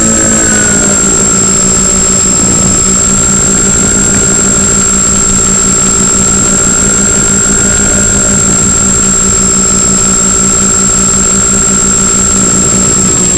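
The twin electric motors and propellers of a Multiplex Twinstar 2 model plane droning steadily in flight, over the rush of wind on the onboard microphone. The pitch drops a little about half a second in, then holds level.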